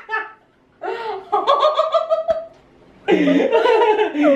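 Laughter: two stretches of laughing, starting about a second in and again near the end, after a short quiet gap.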